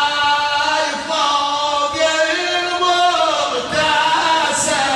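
A man's voice chanting a latmiya, a Shia mourning lament, through a microphone in long, wavering held notes.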